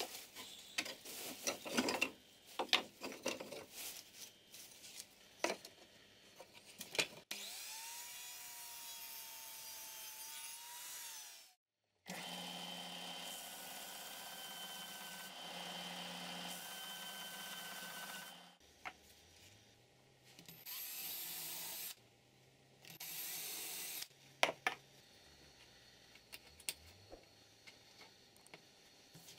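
Wooden offcuts clattering and knocking as they are picked through by hand. Then a power tool runs in steady stretches, among them a Ryobi bench belt sander sanding a small wooden block, followed by shorter bursts of machine noise and light knocks of hand work on the wood.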